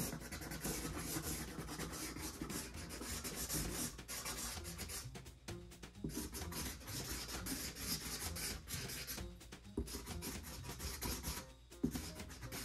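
Felt tip of a Sharpie marker scratching across cardboard in runs of drawing strokes, with short pauses between the runs.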